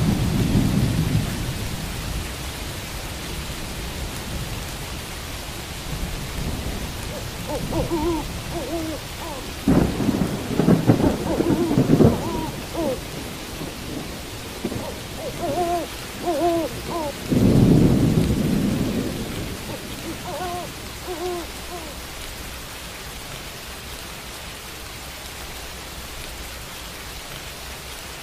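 Steady rain with rolls of thunder, one about ten seconds in and another about seventeen seconds in, and an owl hooting in short calls several times over the rain.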